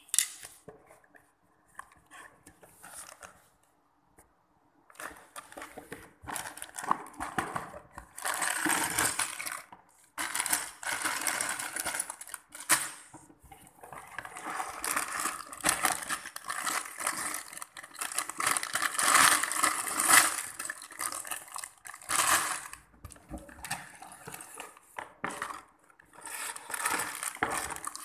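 Cardboard Lego set box being opened by hand and its plastic bags of bricks crinkling and rattling as they are pulled out and handled. It starts about five seconds in after a quieter start and goes on as a dense, uneven rustle with many small clicks.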